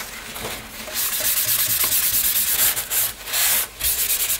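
Corrugated cardboard being wiped by hand to clean off wet white paint splatters: a scratchy rubbing in repeated strokes. It starts about a second in and breaks off briefly a few times near the end.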